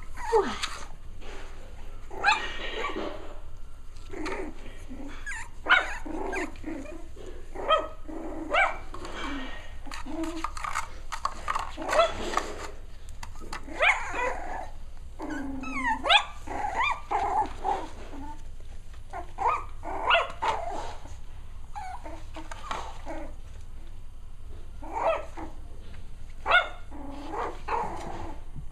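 Cavalier King Charles Spaniel puppies barking and yipping at play, with some growling: many short, high calls at irregular intervals.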